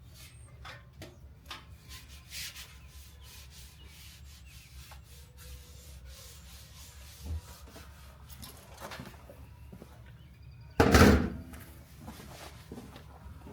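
A computer being cleaned: rubbing and wiping with scattered light clicks and knocks, then one loud rush of noise lasting under a second about eleven seconds in.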